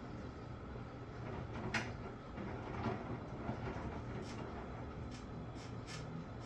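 Washing machine running with a steady low hum and irregular sharp clicks, coming more often in the second half: the unusual noises that the washer is making.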